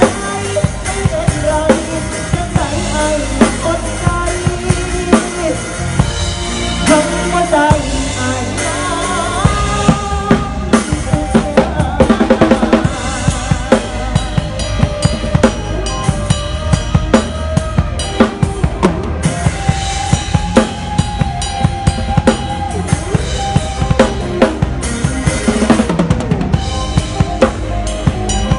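Acoustic drum kit played live with sticks: a steady, busy beat of bass drum, snare and cymbals, with the rest of the band playing along.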